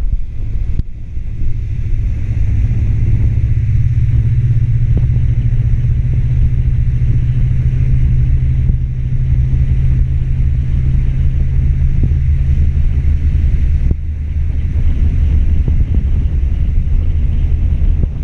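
An engine running steadily with a low drone, its note shifting down slightly about fourteen seconds in, with wind rumbling on the microphone.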